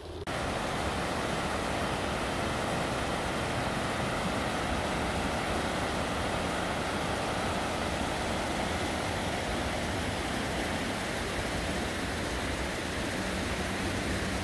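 Bicycle tyres rolling over a gravel towpath, a steady, even rushing noise.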